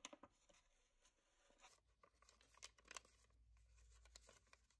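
Faint crinkling and rustling of paper being folded and pulled by hand, with scattered soft clicks.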